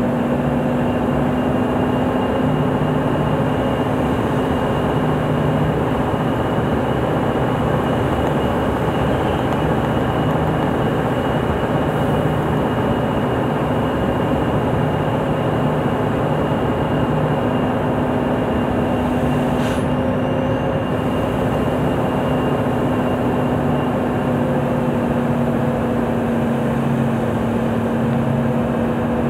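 Scania 164L 580's V8 diesel running steadily on a downhill run, heard from inside the cab: an even engine drone with a steady whine over it.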